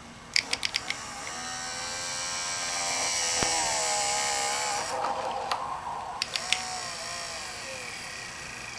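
A few sharp clicks as the headlight leveling switch is turned down, then the small electric motor of a 2000–2005 Toyota Celica OEM HID headlight leveler whirring for about four seconds as it drives the headlight lower, bench-tested off the car. More clicks come past the middle, followed by a weaker whir.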